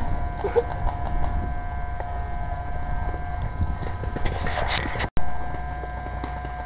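Wind and handling rumble on a handheld camcorder microphone under a steady thin whine, with scattered small clicks. The sound cuts out for an instant about five seconds in, then comes back with a loud knock.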